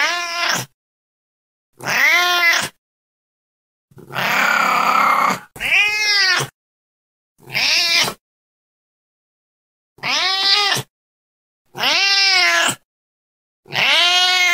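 Domestic cat meowing over and over, about eight separate meows roughly every two seconds, each rising and then falling in pitch, with dead silence between. One about four seconds in is longer and harsher than the rest.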